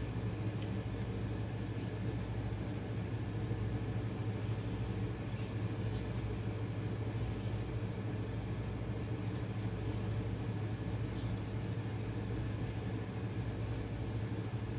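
A steady low hum, as from a running kitchen appliance or fan, with a few faint knife taps as a soft tomato is cut on a paper towel over the counter.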